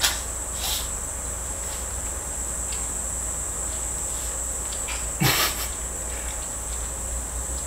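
A steady high-pitched drone runs throughout, with a few short rustling noises on top; the loudest comes about five seconds in.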